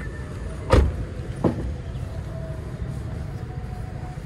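A Honda Brio Satya's door being shut: a heavy thud about a second in, then a lighter knock about half a second later, over a steady low rumble.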